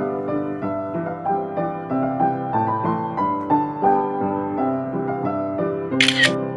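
Background piano music: a gentle melody of separate notes. A brief sharp sound cuts in about six seconds in.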